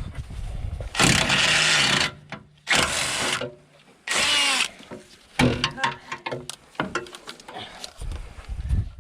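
Impact wrench run in three bursts, the first about a second long and the next two shorter, undoing bumper bolts. Clicks and knocks of tools and bolts come between the bursts.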